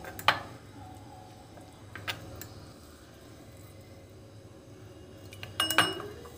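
A spoon stirring thick gram-flour batter in a glass bowl as water is worked into a paste, with a few sharp clicks of the spoon against the bowl and a louder clatter with a short ring near the end.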